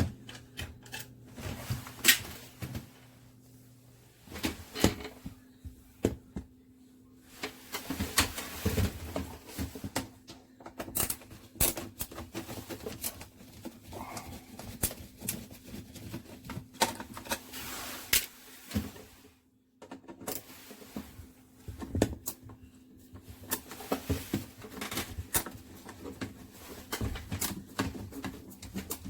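Irregular clicks, taps and knocks of hands and tools working on a dishwasher's touchpad control panel and its plastic housing, over a faint steady hum.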